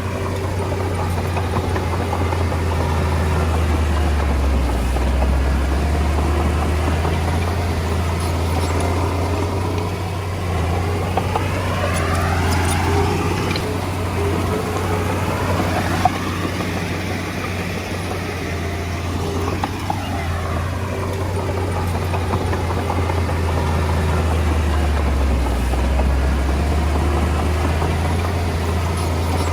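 Komatsu D20A bulldozer's diesel engine running continuously with a deep drone, its loudness swelling and easing as the machine works.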